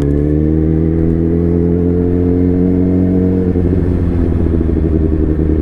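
Suzuki GSX-R1000's inline-four engine pulling under acceleration, muffled, its pitch climbing slowly for about three and a half seconds, then levelling off and turning rougher.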